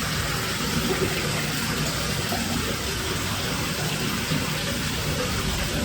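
Steady rush of running water, like a water pump or filter splashing into an exhibit tank.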